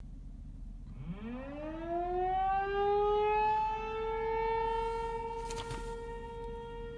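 Tornado warning siren winding up: about a second in, its tone rises from a low growl, levels off within a couple of seconds and then holds one steady wail. A short rushing noise cuts across it about five and a half seconds in.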